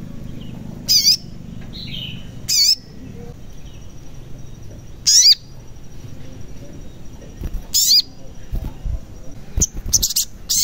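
Male olive-backed sunbird (sogon) giving four short, sharp, high calls a few seconds apart, then breaking into a fast twittering trill near the end.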